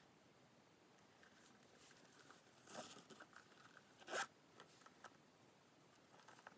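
Metal zipper on a Coach wristlet being pulled along its track in two short zips, the second about four seconds in being the sharper and louder, with light handling clicks in between.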